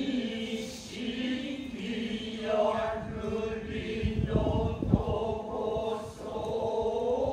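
Noh chant (utai) sung by several low male voices together in long, slowly wavering tones, with a few dull thumps about four to five seconds in.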